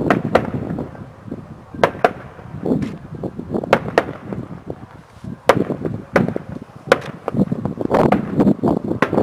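Aerial firework shells bursting: a series of sharp bangs, several coming in quick pairs, with a low rumble between them.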